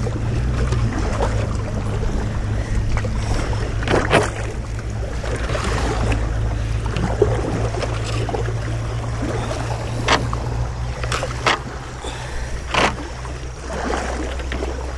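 Kayak paddle working through shallow, riffling river water: a steady low rumble with a few sharp paddle splashes, about four seconds in and then three more close together near the end.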